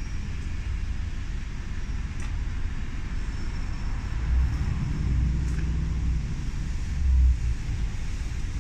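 A low, steady vehicle rumble that swells briefly about four and a half seconds in and again near seven seconds.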